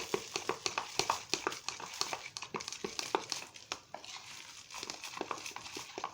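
Slime being handled and mixed as glitter is worked in: a run of quick, irregular small clicks and crackles, several a second.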